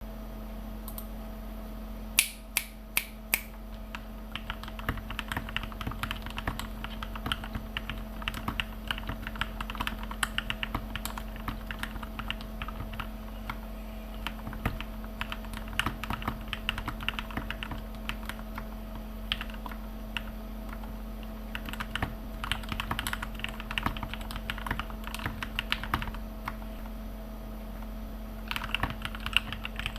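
Typing on an RK61 mechanical keyboard with lubed Gateron Milky Yellow linear switches, pressed softly without bottoming out: a quick, muted patter of keystrokes from about four seconds in, with a couple of short pauses. Four sharp, louder clicks come just before it, about two seconds in.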